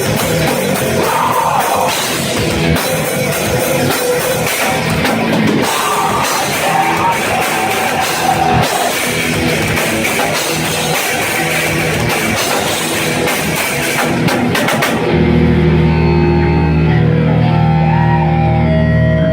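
Live heavy rock band playing at full volume: pounding drum kit and distorted guitars. About fifteen seconds in the crashing full band stops and gives way to a steady held low chord.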